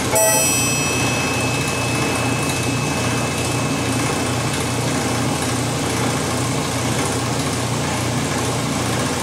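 The Peacock mechanical orchestrion, with its accordions and drums, sounds a last note that dies away over the first few seconds. Then only the organ's own pump mechanism is heard, running on as a steady low pulsing hum.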